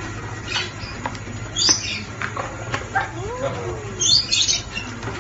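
Lovebirds chirping in short, high bursts, loudest about two seconds in and again near four seconds, with a few light taps in between.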